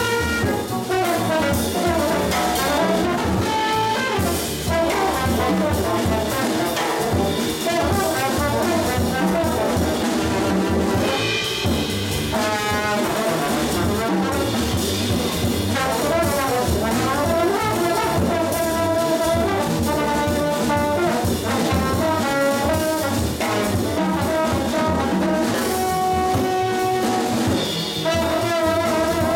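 Small jazz group playing live: trombone playing over piano, upright bass and drum kit.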